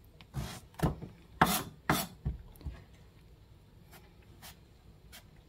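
Kitchen knife trimming the stem ends off eggplants, striking a cutting board: about six sharp knocks in the first three seconds, then a few fainter ticks.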